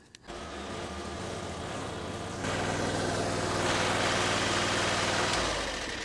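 Chinese mini skid steer's engine running, rising to a higher, louder speed about two and a half seconds in, holding there, then easing back near the end.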